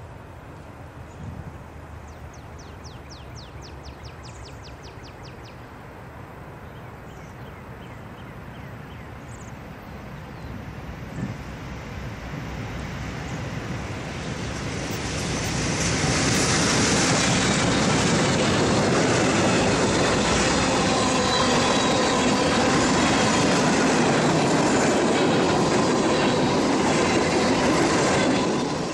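Freight train approaching: a low rumble that grows louder through the first half as the diesel locomotive nears, then the cars rolling past close by with loud, steady wheel-on-rail noise that cuts off suddenly near the end.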